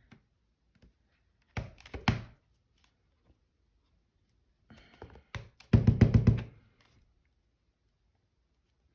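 Clear stamp on an acrylic block tapped repeatedly on an ink pad and pressed onto a journal page, giving quick knocks in two bursts: a short one about two seconds in and a longer, louder one around five to seven seconds in.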